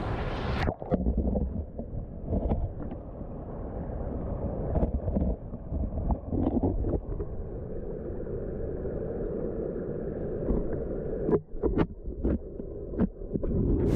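Muffled underwater sound: a steady low rumble of moving water, with scattered knocks and taps and a cluster of sharper knocks near the end. The high sounds of the splashing outflow cut off a moment in as the recording goes below the surface.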